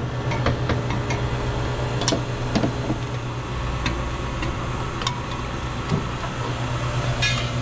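Scattered metal clinks and knocks as a replacement refrigeration compressor's mounting feet are set onto their bolts, over a steady low machinery hum.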